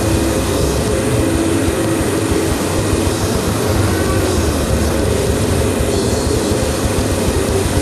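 A steady mechanical drone: a continuous rumble with a low hum and a few higher held tones, unchanging throughout.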